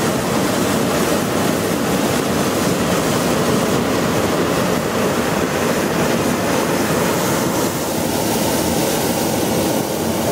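Hot-air balloon's propane burner firing in one long continuous blast, heating the air in the envelope: a loud, steady rushing noise that starts abruptly and holds without a break.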